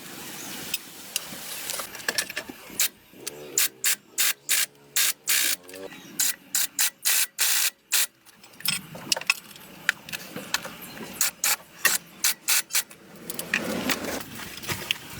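A rapid, irregular series of short scraping strokes, about two to three a second and thickest in the middle stretch, as of a hand tool worked back and forth.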